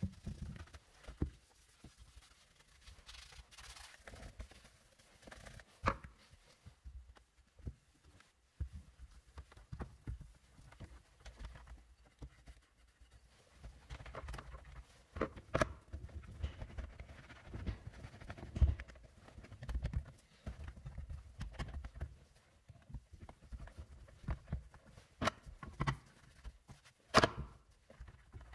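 Soft brushing and wiping on a car's dashboard and centre-console plastics with a detailing brush and a microfiber towel, with irregular light clicks and knocks as the trim and buttons are worked.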